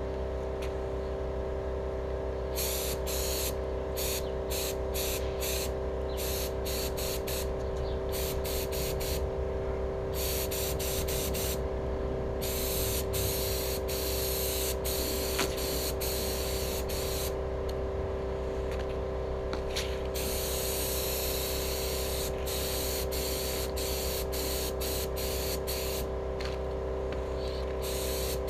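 Gravity-feed HVLP spray gun spraying acrylic enamel onto steel wheels: the trigger is pulled in many short hissing bursts of air and paint, with a few longer passes, over a steady hum.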